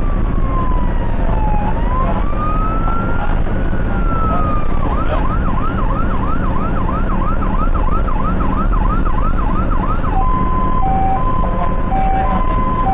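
Ambulance electronic siren changing pattern. First a slow wail falling and rising, then from about five seconds in a fast yelp of about three sweeps a second, then near the end a two-tone hi-lo alternation. Under it runs the steady rumble of engine and tyres, heard from inside the moving ambulance.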